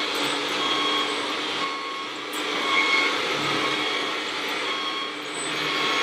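Scale RC construction-machine running, with a steady low hum and hiss, and short electronic beeps now and then like a reversing alarm.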